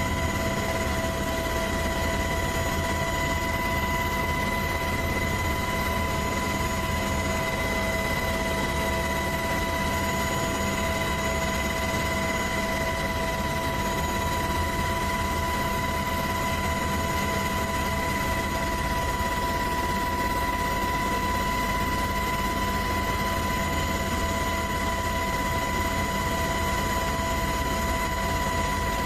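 Helicopter in flight, heard from inside the cabin: a steady rumble of rotor and engine noise with constant high whining tones.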